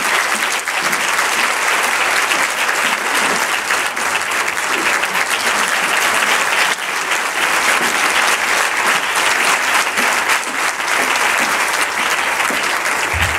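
Audience applauding: a steady, sustained round of clapping.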